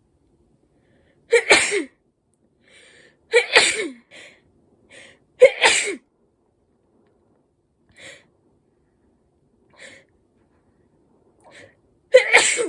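A person sneezing four times, sneezes set off by tickling the nose with a twisted paper string (kouyori). The first three come about two seconds apart and the last near the end, with short quiet breaths between them.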